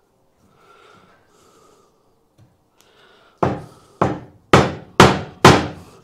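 A mallet striking a chisel five times, about two blows a second, starting about halfway through, as the chisel cuts in along the marked edge of a door hinge rebate in a wooden door frame.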